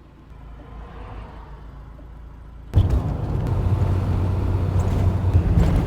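Van running, heard from inside the cab: a faint low rumble at first, then about halfway through a sudden jump to loud, steady engine and road noise with a low hum.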